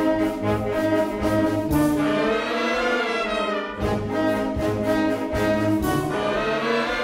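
A youth wind band playing, brass to the fore, over a pulsing low bass line. For a stretch in the middle the bass pulse drops out under a held chord, then comes back.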